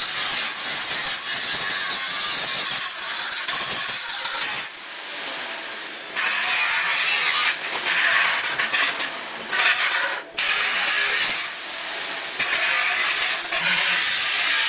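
Angle grinder grinding steel, cleaning up welds on a window grill, in long runs with short pauses where it drops back and winds down.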